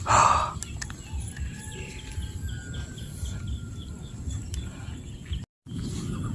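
Outdoor field ambience: a short loud rush of noise at the start, then a low steady rumble with a run of faint, evenly repeated chirps. The sound cuts out briefly near the end.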